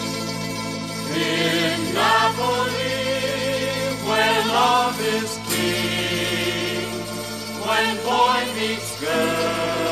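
Background music: a song with steady held chords and wavering singing voices.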